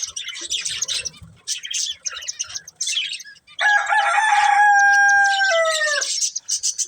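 Budgerigars chirping in quick, high twitters, then a rooster crows loudly for about two and a half seconds; the crow holds one pitch and then drops at the end.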